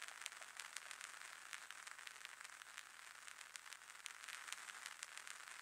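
Faint vinyl-style crackle: scattered clicks over a steady hiss.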